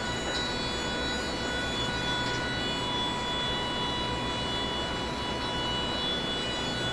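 Electric drive motors of a power-wheelchair-based robot running as it rolls and turns: a steady whine of several high tones over a low hum.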